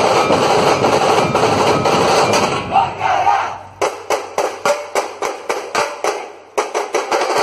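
Dhol-tasha troupe drumming: large barrel dhols beaten with sticks in a fast, dense roll. About four seconds in, the roll breaks into separate sharp strikes spaced out unevenly. A brief group shout comes from the players around three seconds in.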